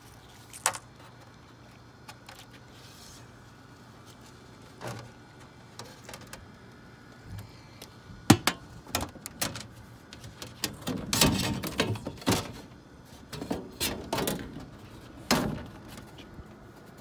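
Scattered clicks, clacks and rattles of a solar oven being opened: a strap and latches undone and its folding metal reflector panels swung out into place. The sharpest knocks come about 8 and 15 seconds in, with a busy stretch of clatter around 11 to 12 seconds.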